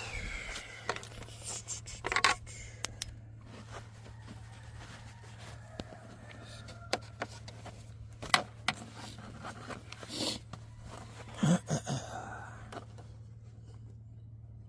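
Scattered clicks, knocks and scrapes of something being handled, with a short cluster of knocks near the end, over a steady low hum.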